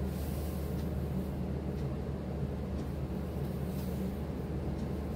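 Steady low hum of room background noise, with faint soft rustles of chiffon saree fabric being handled a few times.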